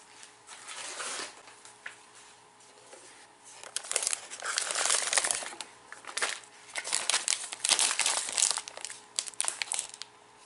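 Plastic snack packet of black sesame karintō crinkling as it is picked up and handled, quiet at first, then loud, dense crackling from about four seconds in.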